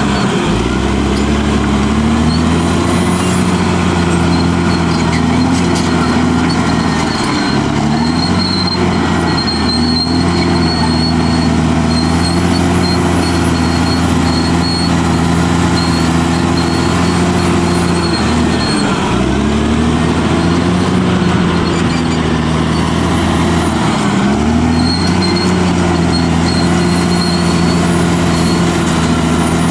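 Caterpillar D6R bulldozer's diesel engine running hard, its pitch sagging and climbing back three times, with a thin high whine that comes and goes.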